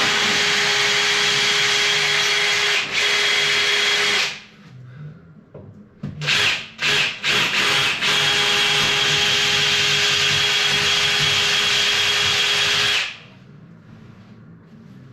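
Power drill boring holes in the wall for the towel rail's 6 mm wall plugs. It runs steadily for about four seconds, gives a few short bursts, then runs steadily again for about five seconds before stopping.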